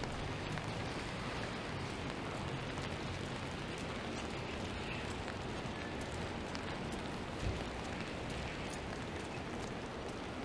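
Steady hiss of rain and wet traffic on a city street, with one brief low thump about seven and a half seconds in.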